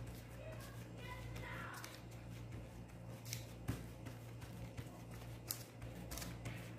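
Gloved fingers pressing and patting pizza dough flat on a parchment-lined aluminium baking tray: faint rustling of the plastic glove and paper with a few light taps, over a steady low hum.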